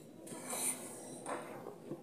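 Two short breathy sounds from a child eating instant cup noodles with chopsticks, about half a second and just over a second apart.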